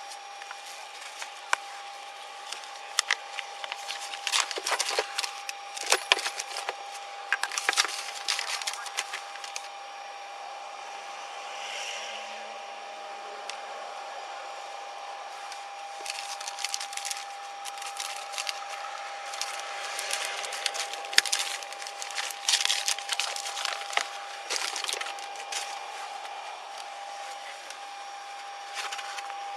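Irregular crackling and rustling from objects being handled close to the microphone, coming in clusters, over a steady faint high hum.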